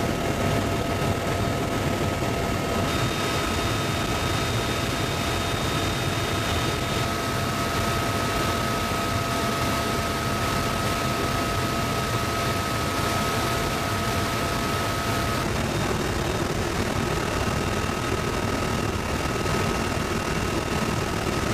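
Cabin noise of a UH-1Y Venom helicopter in flight: a steady, dense mix of rotor and turbine noise with a thin steady whine above it. The whine shifts in pitch twice, about three seconds in and again near the end.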